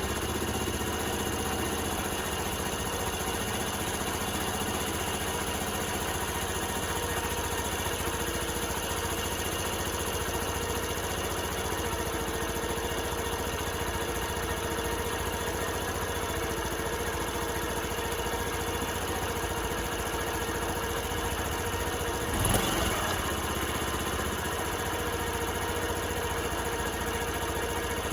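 Honda Super Cub 50 (AA04) 49 cc four-stroke single-cylinder engine idling steadily, running on a freshly fitted spark plug. A short, louder swell comes about three-quarters of the way through.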